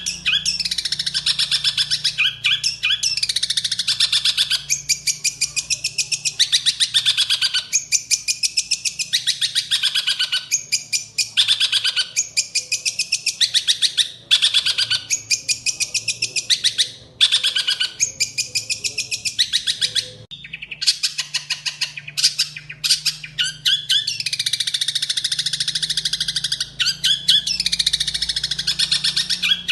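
Songbird singing: a continuous run of rapid, fast-repeated high chirping notes in phrases of one to three seconds, broken by brief pauses.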